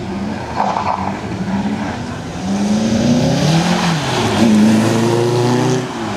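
TVR sports car engine pulling hard from low speed, revs climbing, dropping about four seconds in, then climbing again, with a lift-off near the end.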